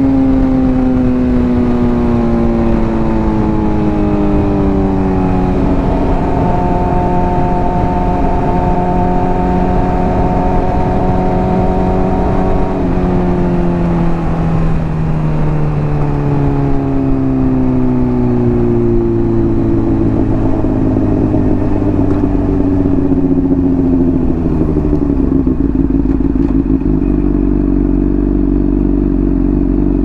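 Honda CBR600RR inline-four through a Hotbodies Stinger slip-on exhaust, its engine note falling steadily as the bike slows. The pitch holds level for several seconds in the middle, falls again, and settles into a low, steady note over the last few seconds.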